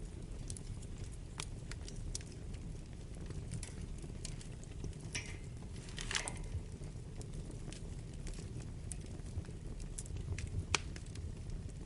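Wood fire burning in a fireplace: a steady low rumble of flames with scattered crackles and snaps, a couple of brief hisses about halfway, and one sharper pop near the end.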